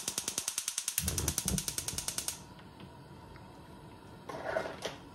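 Gas stove burner's electric igniter clicking rapidly, about a dozen clicks a second, with a low whoosh about a second in as the gas catches; the clicking stops after about two and a half seconds. A short scraping noise follows near the end.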